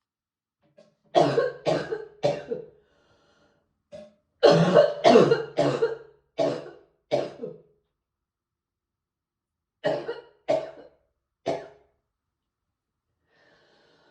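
A person coughing in three fits: about three coughs a second in, a run of five or six from about four seconds, and three more near ten seconds.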